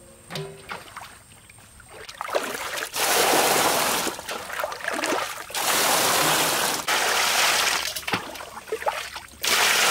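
Water pouring in three separate bursts, each lasting about two seconds, with a few small knocks in the pauses between.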